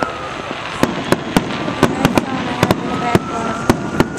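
Aerial fireworks display: about a dozen sharp, irregular bangs over continuous crackling, with long whistling tones that slide slowly down, then up, in pitch.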